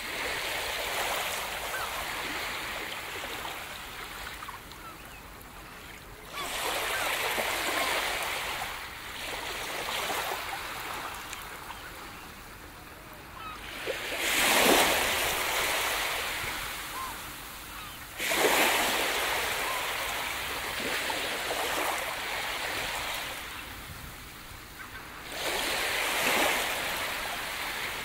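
Sea surf washing onto a beach. A steady hiss of water swells and ebbs as each wave comes in, about every four to eight seconds, with the strongest wave about halfway through.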